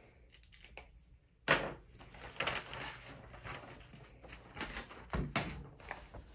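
A sharp knock about a second and a half in, then a run of softer knocks and rustling as a person moves about close to the microphone and handles a sheet of paper.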